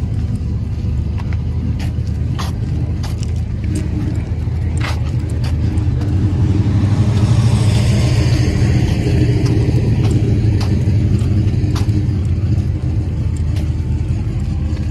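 A car engine running with a steady, deep sound, growing louder for a few seconds around the middle, with scattered sharp clicks.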